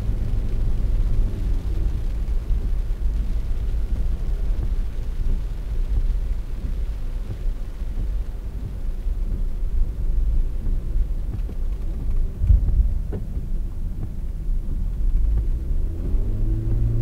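Steady low road rumble of a car driving on a wet road, heard from inside the cabin, with a thump about twelve seconds in. A humming tone rises in near the end.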